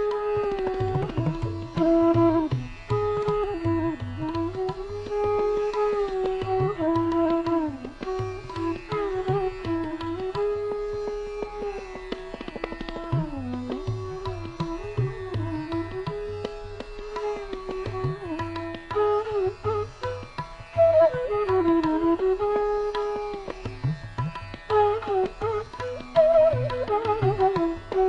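Background music in an Indian classical style: a gliding, bending melodic line over repeated hand-drum strokes.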